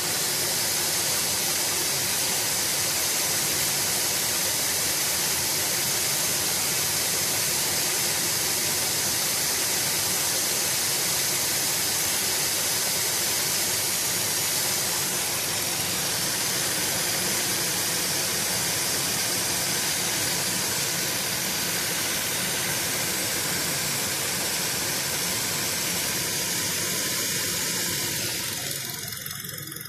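Diesel engine idling with its accessory drive belt running, giving a steady rustling hiss: the belt has been treated with belt-dressing fluid and is not squeaking. The sound fades away near the end.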